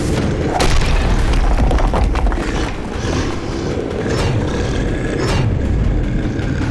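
Cinematic monster-film soundtrack: dramatic music layered with deep booms and a heavy, continuous low rumble, with a sharp impact less than a second in.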